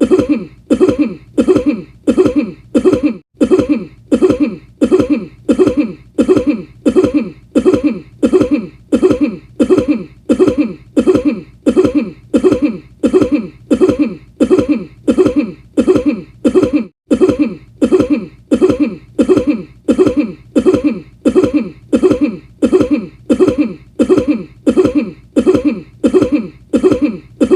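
A person's cough repeated over and over in a steady loop, about three coughs every two seconds, each cough the same and falling a little in pitch.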